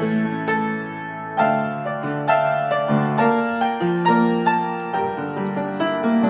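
Piano playing an instrumental passage of the song with no singing: single notes and chords struck one after another over held low notes.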